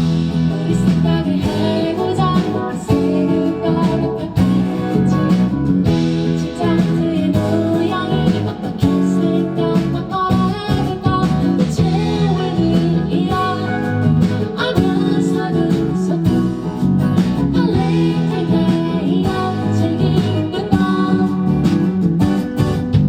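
Live band music, led by a strummed acoustic guitar.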